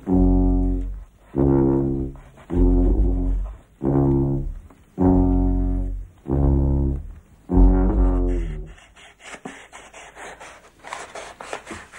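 Sousaphone blown in a room: seven long, low notes of about a second each with short breaks between them, the last one sagging in pitch as it ends. After that, near the end, quieter quick scraping strokes of a knife cutting through cardboard.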